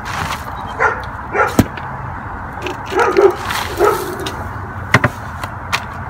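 A dog barking in the background, about five short barks in the first four seconds. Potting mix is poured into a plastic bucket at the start, and there are a few sharp knocks, the loudest about a second and a half in and again near five seconds.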